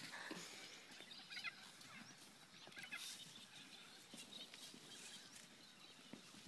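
Near silence: quiet outdoor paddock ambience with a few faint, short high chirps.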